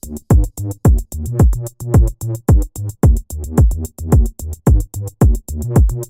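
Electronic background music with a steady drum-machine beat: a deep kick drum about twice a second over a bass line, with ticking hi-hats.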